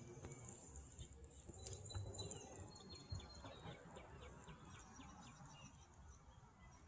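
Faint bird chirps with a short, quick trill and a thin whistle in the middle, over a low, steady rumble.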